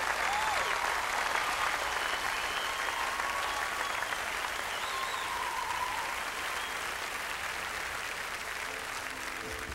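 Large audience applauding, slowly dying down.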